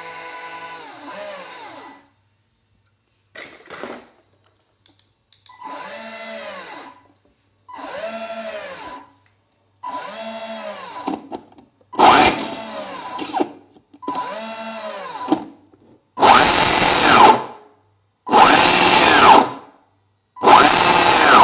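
The 540-size brushed electric motors of a 3D-printed RC tank, with fans and heatsinks, are spun up and back down in about ten short bursts of a second or so each, under control of a servo tester. Each burst whines up in pitch and falls away again as the motor turns its PLA drive gear. The last three bursts are the loudest.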